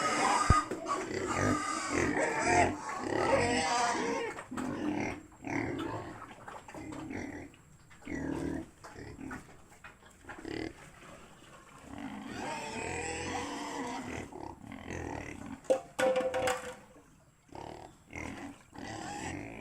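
Pigs grunting and squealing in irregular bursts. The sound is densest and loudest over the first few seconds, with a short sharp squeal about sixteen seconds in.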